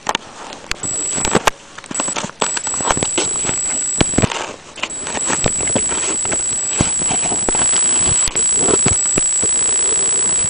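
Handling noise: plastic packaging crinkling with many irregular clicks and knocks as the tripod and camera are moved about, over a steady high-pitched whine that drops out briefly in the middle.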